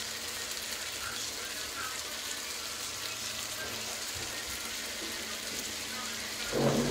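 Fish pieces frying with tomato and onion in a pan, giving a steady sizzle. A brief louder sound cuts in near the end.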